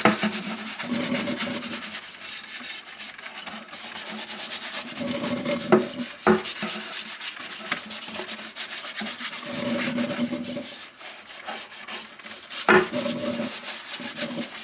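Half a lemon scrubbing gritty baking soda back and forth across a wooden cutting board: steady rubbing that swells with each stroke, broken by a few sharp knocks.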